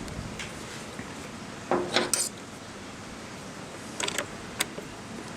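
Plastic radio case parts knocking and clicking as they are worked into place: a cluster of knocks about two seconds in and a few short sharp clicks about four seconds in.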